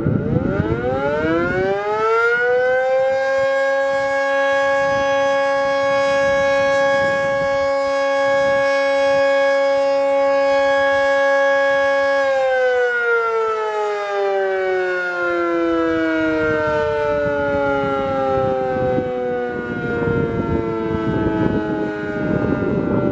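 Decot Model 50 electromechanical outdoor warning siren sounding its noon test: it winds up to a steady wail within a few seconds, holds that pitch for about ten seconds, then slowly winds down as it coasts off.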